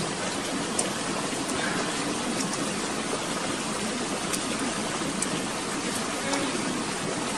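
Steady rushing of flowing stream water, with a few faint clicks over it.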